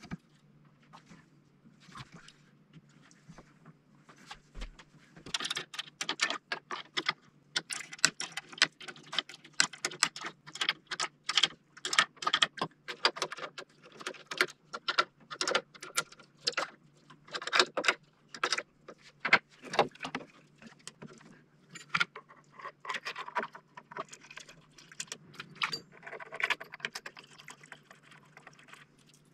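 Irregular clicking and rattling of small metal parts and tools being handled inside a homemade tennis ball machine, sparse at first and dense from about five seconds in, over a low steady hum.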